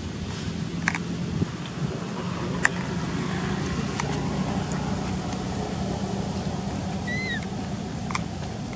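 Steady low engine-like hum, with a few sharp clicks and a short high chirp about seven seconds in.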